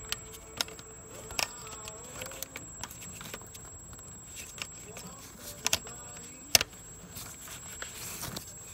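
A few sharp clicks and knocks from hands refitting parts in a car's engine bay, the loudest about six and a half seconds in, over quiet background music.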